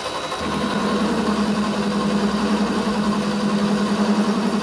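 Vevor MX-8x14 mini lathe running, a steady hum of its motor and gears. About half a second in it gets louder, with a strong low steady tone and a deeper rumble, as the cutter takes a cut in the spinning workpiece.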